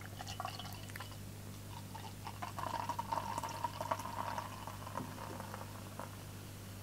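Dark strong ale poured from a glass bottle into a pint glass. The faint splash of the stream is loudest from about two and a half to four and a half seconds in. The beer is well carbonated and foams up in the glass.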